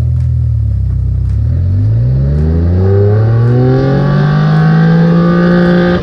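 Fuel-injected dune buggy engine accelerating hard at full throttle, its pitch rising steadily from about a second and a half in and levelling off near the end. This is a tuning pull whose data the autotune uses to correct the engine's fuel table.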